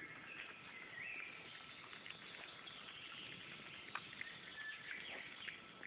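Wild boar piglets squeaking faintly as they feed: short high-pitched squeaks and little rising calls, with scattered light clicks and rustling.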